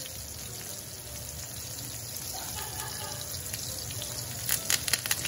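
Ribeye steak searing in hot oil in a cast iron skillet: a steady sizzle, with a few sharp crackles about four and a half seconds in.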